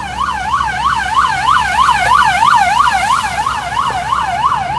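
Emergency vehicle siren in a fast yelp, its pitch sweeping up and down about three times a second, over a steady rush of background noise.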